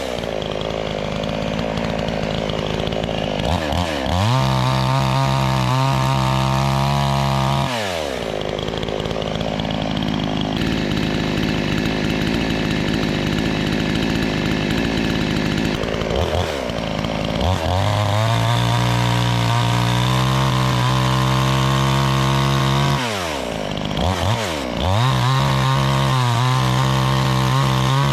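Chainsaw engine running, repeatedly revved up to a high, steady full-throttle note for several seconds and then let fall back to a rough idle. There are two quick blips of the throttle just before the last rev.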